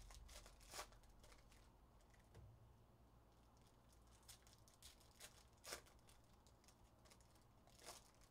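Faint crinkling and tearing of a foil trading-card pack wrapper being pulled open, in a few short, separate rustles.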